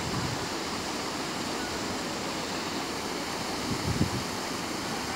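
Steady rush of river water cascading between large boulders, an even hiss. A brief low thump about four seconds in.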